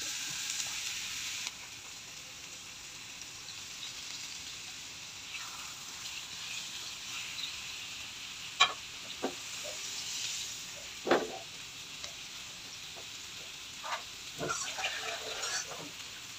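Rohu fish pieces rubbed with turmeric, chilli powder, coriander powder and salt sizzling steadily as they shallow-fry in hot oil in a nonstick pan. A few short sharp pops and clicks come through near the middle and toward the end.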